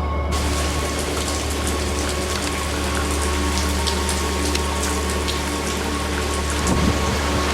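Heavy rain falling, with scattered sharp drop hits, a steady low rumble and a faint steady hum.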